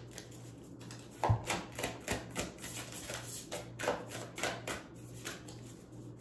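A deck of oracle cards being shuffled by hand: a run of quick, irregular card flicks and taps, with a sharper knock about a second in.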